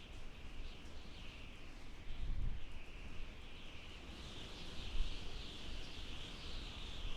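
Wind howling in gusts: a high whistling hiss that wavers up and down over a low, gusty rumble, growing louder toward the end.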